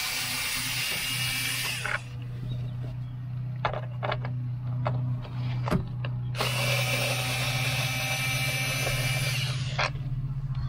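Power drill-driver running in two long bursts, backing out the screws of a plastic interior trim panel, with a few sharp clicks of handling between the bursts. A steady low hum runs underneath.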